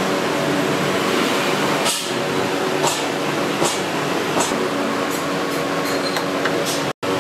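Steady mechanical hum and rushing air noise, with a few light clicks in the middle; it cuts out for an instant near the end.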